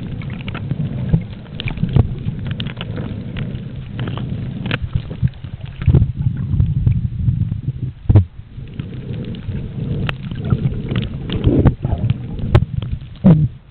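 Muffled underwater sound at a camera's microphone as it is moved through the water: a low, churning rumble of water against the housing, broken by irregular sharp knocks and clicks, the loudest about eight seconds in and again near the end.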